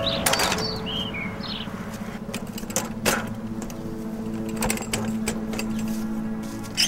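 A folding wheelchair's metal frame clanking several times as it is lifted out of a vehicle's cargo area and unfolded, over a steady low buzz.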